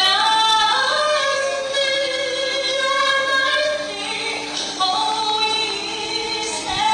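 A woman singing into a microphone, holding long notes and sliding between pitches.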